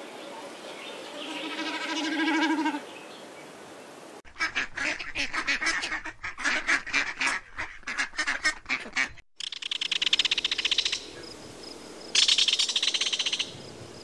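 A common snipe's pulsed, swelling sound for the first few seconds, then a mallard quacking in a long run of separate quacks, then a common kingfisher's rapid high trilling calls in two bouts.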